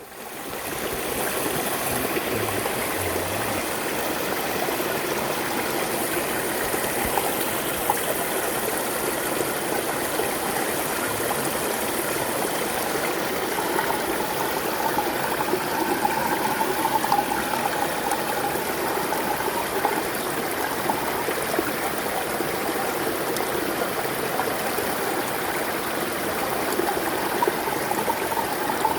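A small stream running and burbling over stones, a steady rushing wash with a higher gurgling note that comes up about halfway through.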